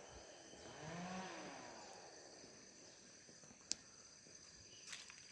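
Faint, steady high-pitched insect chirring, like crickets, with a faint drawn-out call about a second in and a single sharp click shortly before the end.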